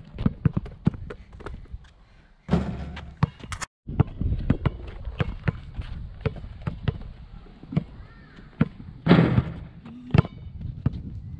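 Basketball being dribbled on an outdoor rubber court: a run of quick, sharp bounces, several a second, with a brief cut to silence a little under four seconds in.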